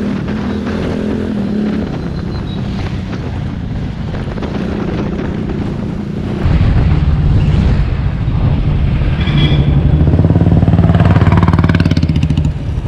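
Motorcycle engine running under way, with road and wind noise; about halfway through it suddenly becomes louder and deeper.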